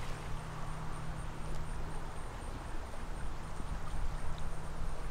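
Steady outdoor ambience: a continuous low rumble with an even hiss over it and a few faint ticks.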